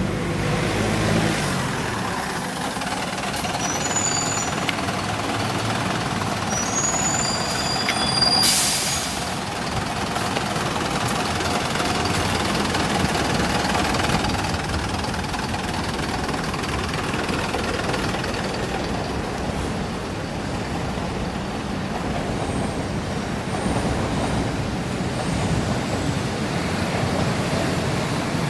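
Optare Solo bus running, with steady engine and road noise and several short high-pitched squeaks in the first eight seconds or so, the squeaky noise the bus is known for. About eight seconds in there is one short loud hiss.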